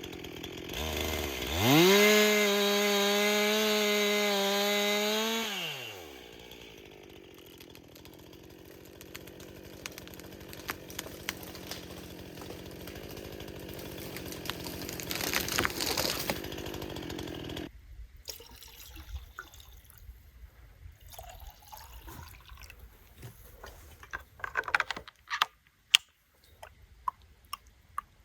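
Stihl MS 261 two-stroke chainsaw running at high revs for about four seconds, then dropping back to a lower idle. After an abrupt break about two-thirds of the way through, only scattered sharp snaps and clicks are heard.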